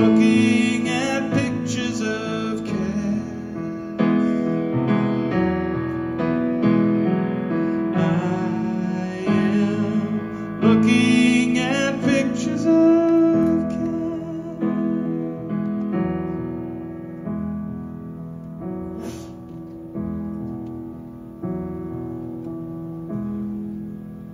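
Yamaha grand piano played live: a run of struck chords, each left to ring, growing gradually quieter toward the end.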